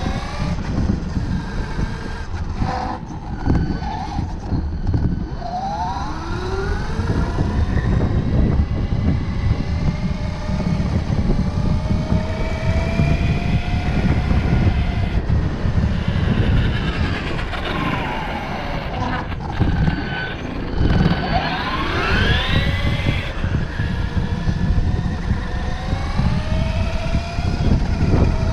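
RC car's motor whining, its pitch rising and falling again and again as the throttle is worked, over a constant rumble from the knobby tyres rolling across rough broken-tile paving.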